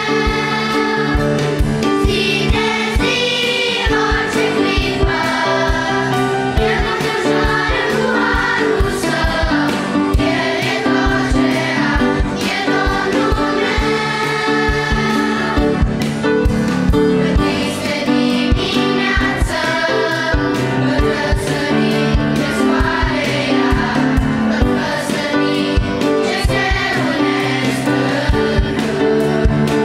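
Children's choir singing a Romanian Christian song in unison, over instrumental accompaniment with a steady beat.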